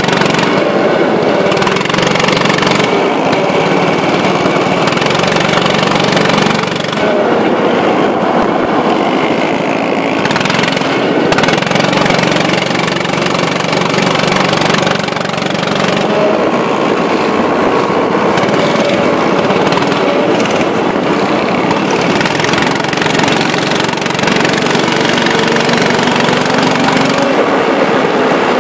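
Go-kart engines running hard around a track, a steady loud drone whose pitch rises and falls with the throttle, with a slow climb in pitch near the end as a kart accelerates.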